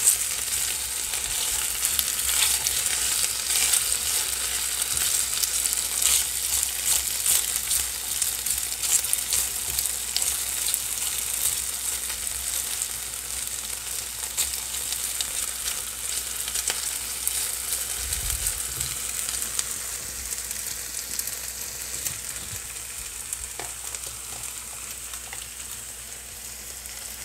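Potato strips sizzling as they fry in oil in a skillet, with scrapes and taps of a spatula as the pieces are turned to brown on the other side. The sizzle slowly fades toward the end.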